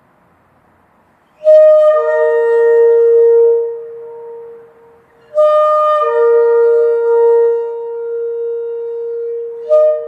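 Shofar (ram's horn) blown in three long blasts. The first starts about a second and a half in and lasts about three seconds, the second lasts about four seconds from just past the midpoint, and the third begins just before the end. Each blast opens on a higher note and settles onto a steady lower one.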